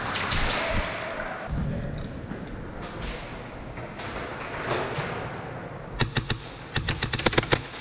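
Handling and movement rustle, then two bursts of airsoft gunfire near the end: a short run of three or four sharp shots, then a faster burst of about eight to ten.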